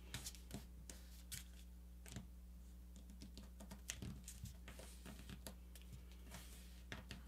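Faint rustling and small taps of a sheet of paper being folded and creased by hand, over a steady low hum.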